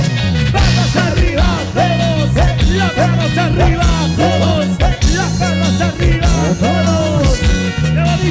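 Live cumbia band playing: a gliding lead melody over a steady, repeating bass line.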